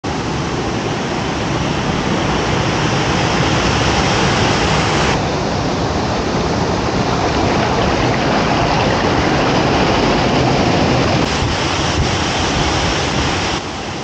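A small waterfall pouring into a rock plunge pool: a steady, loud rush of falling water, its tone changing suddenly a few times as the shots change.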